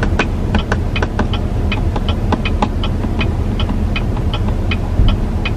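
A car's turn-signal relay ticks quickly and evenly inside the cabin, over the steady low hum of the engine and road.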